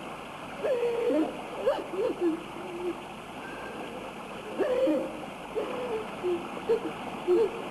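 A woman's voice crying in short, halting sobs and moans that bend up and down in pitch and break off, over steady soundtrack hiss.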